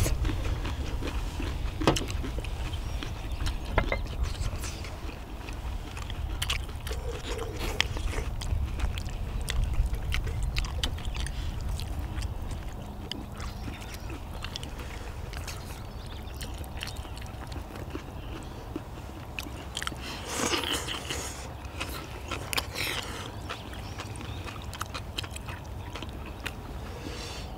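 People eating spicy stir-fried chicken with udon noodles: chewing and slurping, with frequent light clicks of chopsticks on plates and bowls, over a low steady rumble.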